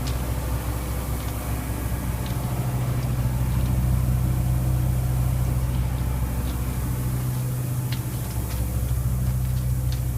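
Air-conditioning outdoor condenser unit running with a steady low hum, with a few faint ticks.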